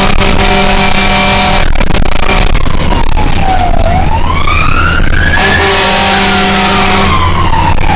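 Fire ladder truck on an emergency run, heard from inside the cab. Its siren wails, falling and rising in pitch, over the engine's deep drone. Two long horn blasts sound, one at the start and one about five and a half seconds in.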